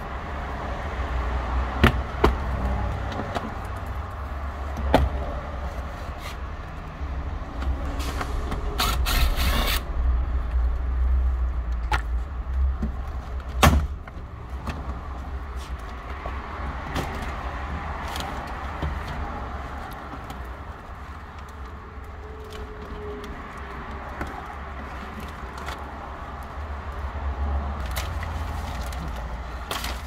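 Scattered clicks and knocks and a short rasp about nine seconds in from hands and tools working on a Honda CR-V door, over a steady low rumble.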